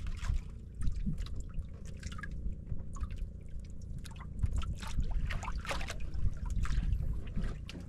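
Water dripping and splashing in short, irregular bursts over a steady low rumble.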